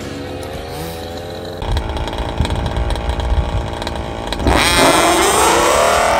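Two-stroke gas engine of a 1/5-scale RC buggy running with a wavering pitch. About a second and a half in there is a low rumble, then near the end the engine revs up sharply, its pitch climbing steeply as the buggy launches at full throttle.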